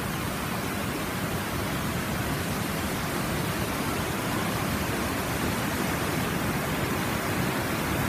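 Water rushing steadily over the low rock cascades of a waterfall, a continuous even rush.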